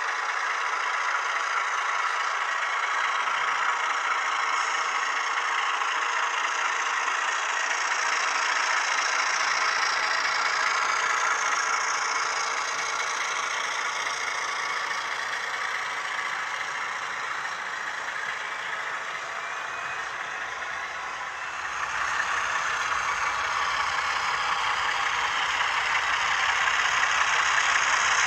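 HO scale model freight train running past: steady running noise of the cars on the track, mixed with the diesel engine sound of a sound-equipped model locomotive. It grows louder over the last several seconds as the Northern Pacific RS3 locomotive comes by.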